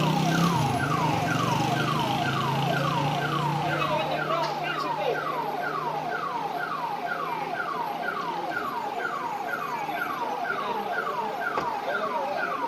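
Electronic siren sounding a repeated falling tone, about two sweeps a second, with a low steady hum underneath that fades out about two-thirds of the way through.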